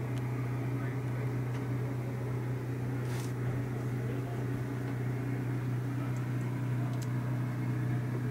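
A running motor's steady low hum, with a brief soft rustle about three seconds in.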